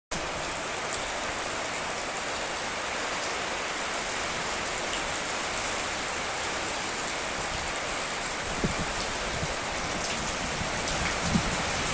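Strong wind blowing steadily in a dense, even hiss, with a couple of faint low knocks near the end.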